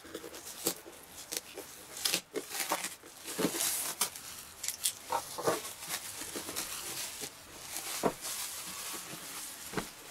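Clear plastic shrink wrap being torn and pulled off a hard plastic case, crinkling and crackling irregularly, with scattered knocks as the case is handled.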